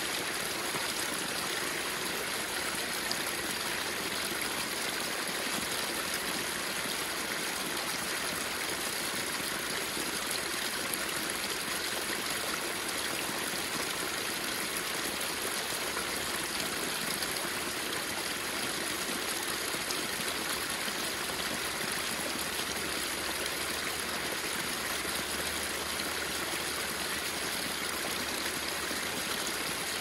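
Water of a small waterfall spilling over a mossy rock ledge into a shallow creek, splashing steadily.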